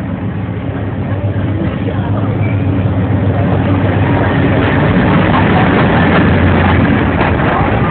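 Narrow-gauge diesel locomotive running close by as it pulls into the station, a steady low engine drone that grows louder over the first few seconds, with wheels clattering on the rails near the end.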